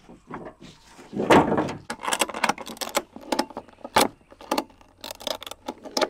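Ratchet strap being tightened around a wooden swarm-trap box: a scraping rustle about a second in, then a run of irregular sharp metal clicks as the ratchet is worked.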